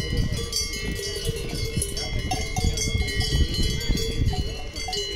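Cowbells on grazing cattle clanking unevenly, several bells ringing together at different pitches.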